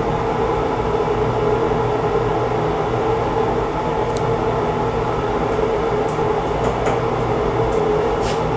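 Steady mechanical hum of running room ventilation, even and unchanging, with a few faint light taps as hands work against the wall.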